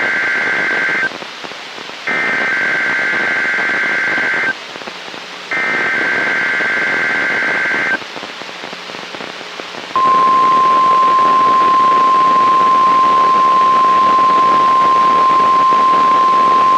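NOAA Weather Radio Emergency Alert System alert over radio hiss: the end of one burst and then two more bursts of the warbling two-tone SAME digital header, each about two and a half seconds long with short gaps, then from about ten seconds in the steady single-pitched 1050 Hz warning alarm tone. Together they announce a practice tornado warning.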